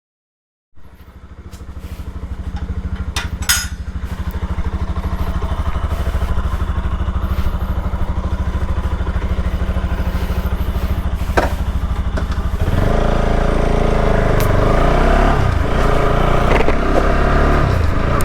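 Bajaj Pulsar RS 200's single-cylinder engine idling with an even low pulse, a couple of sharp clicks over it. About thirteen seconds in, the engine note gets louder and rises as the bike picks up revs.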